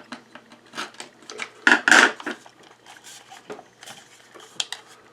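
Irregular metal clicks, scrapes and clinks of hand tools working at the casing of an old hour meter that is resisting being taken apart, with a louder clatter about two seconds in.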